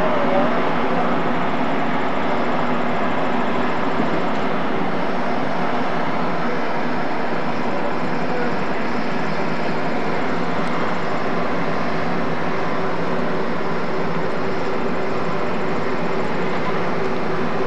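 Steady machinery drone and hiss from a Great Lakes steamship passing close by, with a constant low hum underneath and no change in level.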